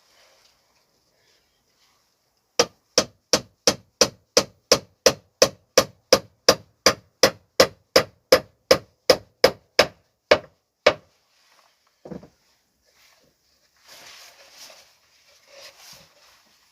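Hammer driving a nail: about twenty even blows at roughly two and a half a second, then one separate knock a moment later. Softer rustling and scraping near the end.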